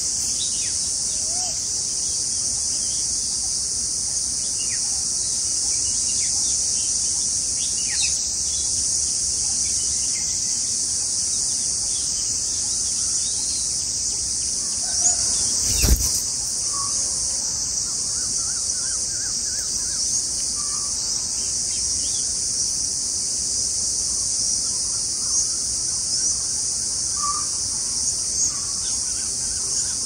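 Steady, high-pitched drone of insects, with scattered short bird chirps and calls over it, and a single brief knock about halfway through.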